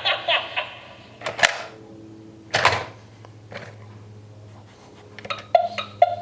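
Gemmy animated monster alarm clock decoration working its mechanism between voice clips: two sudden noisy swishes about a second and a half and two and a half seconds in, then a run of short clicks and blips near the end, over a low steady hum.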